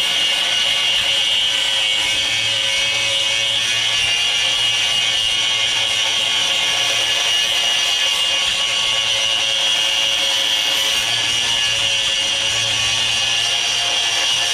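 A 4.5-inch Hitachi angle grinder with a cutoff wheel running steadily under load, with a high whine, as it cuts through the rusted, seized nut and stud of a sway bar link.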